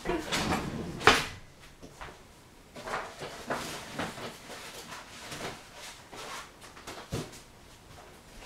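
Kitchen handling noise: a string of separate knocks and clunks as things are moved about and set down on a counter, the loudest about a second in.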